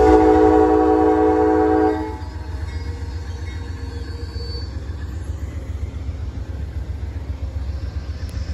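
Amtrak GE Genesis diesel locomotive's horn sounding one chord blast of about two seconds as the train starts to pull forward, followed by the steady low rumble of the moving train.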